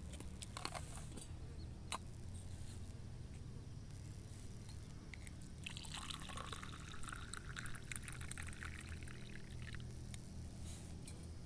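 Liquid being poured into a container in a steady stream for about four seconds, starting around six seconds in. A few sharp clicks and knocks come earlier.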